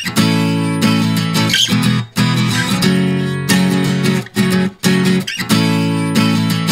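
Background music: guitar chords strummed and held, with short breaks between phrases.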